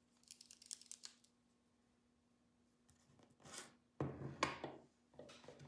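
Faint clicks and rubbing from small metal parts being handled on a workbench, then a short hiss about three and a half seconds in and a few louder scraping knocks near the end.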